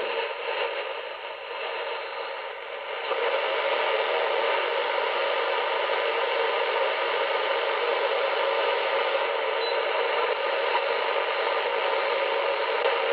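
Icom IC-718 shortwave receiver in AM mode giving out a steady hiss of static and band noise as its dial is tuned between broadcast stations. The noise gets louder about three seconds in.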